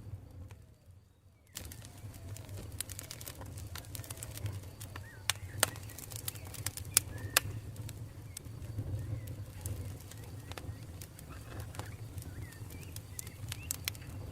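Campfire burning, with frequent sharp crackles and pops over a steady low rumble; the loudest pops come around the middle. Faint bird calls sound in the background. The sound dips almost away near the start and comes back abruptly about a second and a half in.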